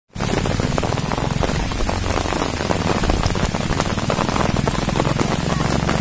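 Steady rain falling, with many sharp individual drop hits.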